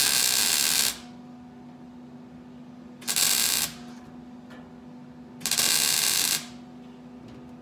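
MIG welder laying plug welds in a new steel trunk pan: three bursts of arc crackle, the first and last about a second long and the middle one shorter, with a low steady hum underneath.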